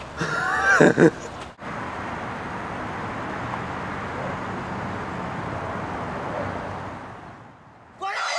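A voice cries out briefly. Then, after a sudden cut, there is steady outdoor noise, an even hiss and rumble that fades away shortly before music starts at the very end.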